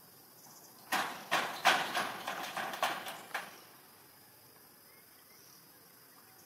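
A quick run of sharp knocks or crunches, about eight in two and a half seconds, starting about a second in and fading out.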